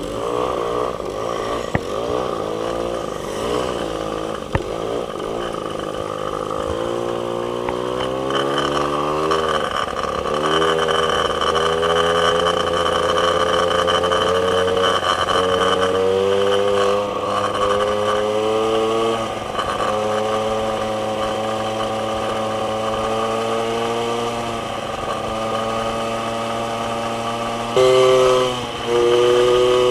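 Small two-stroke moped engine running under the rider, its note climbing steadily as it gathers speed about a third of the way in, then holding a cruising pitch with a couple of brief drops. Near the end the engine note turns suddenly louder, breaks off briefly and comes back.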